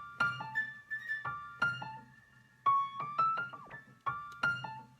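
Piano playing a slow melodic phrase of struck notes, each ringing and fading, the phrase repeating about every second and a half.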